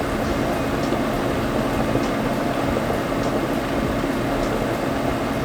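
A covered pot of beef bulalo broth boiling steadily, a constant bubbling hiss with faint ticks.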